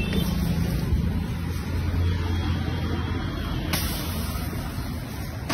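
Gas burner under a street-food griddle running with a low, steady rumble, with a single sharp knock about two-thirds of the way through.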